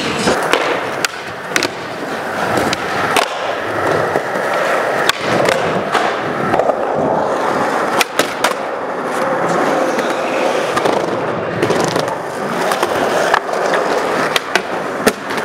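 Skateboard wheels rolling on a hard skatepark floor and ramps, broken by many sharp clacks of the board popping and landing, with a grind along a ledge about halfway through.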